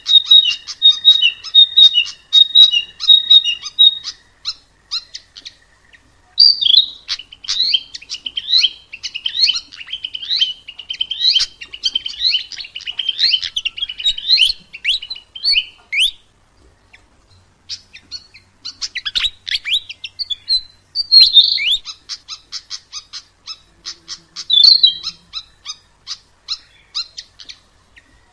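Sikatan emas, a Ficedula flycatcher, singing a fast, varied song of high chirps and trills in long bursts, with two short pauses.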